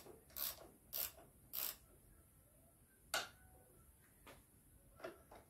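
Sharp clicks of a hand tool turning the preload adjuster on top of an Andreani fork cartridge: three evenly spaced clicks about half a second apart, a single louder click about three seconds in, then a few faint ticks. The fork preload is being set by counted turns.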